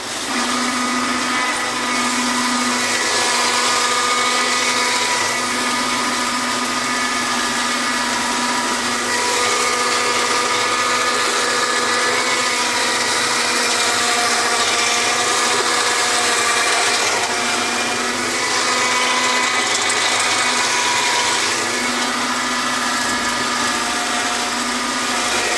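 New Holland tractor engine and a Hayes 2.4 m flail mower's spinning rotor running steadily while cutting long, thick grass, with a constant machine whine over the noise of the rotor and cut grass. The pitch holds even, so the machine is keeping up with the load of the long grass rather than bogging down.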